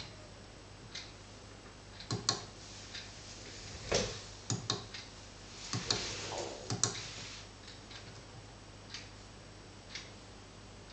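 Steady ticking, one tick about every second, over a low steady hum. A cluster of louder, irregular clicks and knocks comes in the middle.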